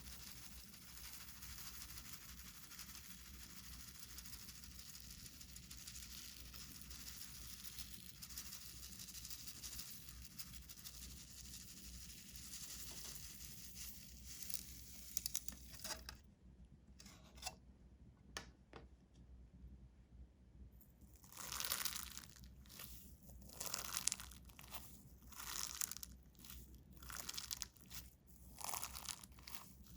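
Slime being kneaded and stretched by hand as pink glitter is mixed into it, with sticky crackling and tearing sounds. A faint steady rustle runs for about the first half, then a short pause, then a run of irregular louder squishes and pops.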